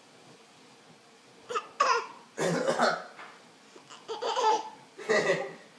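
Seven-month-old baby laughing and babbling in about five short bursts, starting about a second and a half in.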